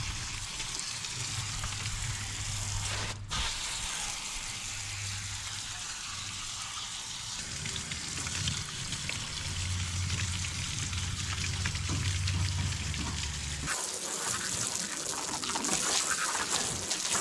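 Water spraying from a garden hose onto an air-conditioning unit's coil, a steady hiss with a brief break about three seconds in. A steady low hum runs under it and stops about 14 seconds in.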